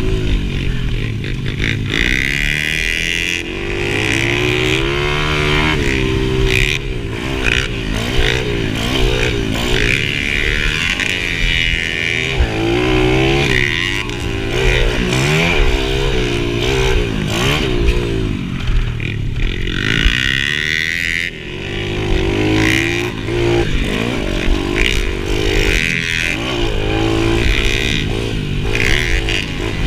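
Small dirt bike engine heard from on the bike, revving up and dropping back over and over as the rider accelerates, shifts and backs off around a dirt motocross track, with knocks and rattles from the bike over the bumps.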